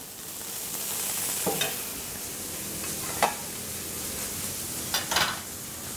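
Chanterelles, romanesco and cauliflower sizzling as they fry in a hot pan with freshly added fat, a steady hiss. A few short clinks and scrapes break in, about a second and a half in, around three seconds and again near five seconds.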